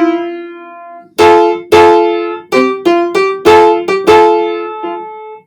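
Piano playing the closing phrase of a music-siren melody: a chord rings and fades, then a phrase of single notes from about a second in, the last note held and cut off abruptly.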